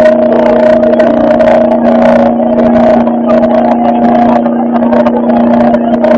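A car engine held at steady high revs during a burnout, loud and distorted.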